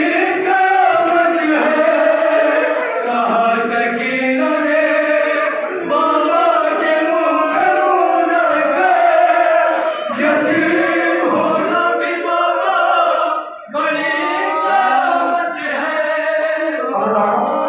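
Men chanting a noha, a Shia mourning lament, together: a lead reciter's voice carried along by a chorus of male voices singing in unison.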